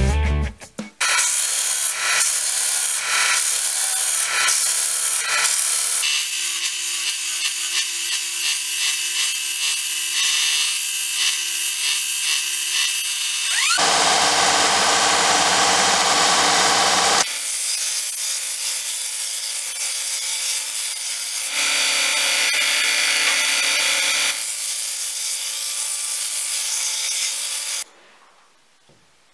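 Band saw cutting an epoxy-resin handle block set with dry birch twigs, heard in several edited takes that cut in and out abruptly, the loudest in the middle; it stops short near the end.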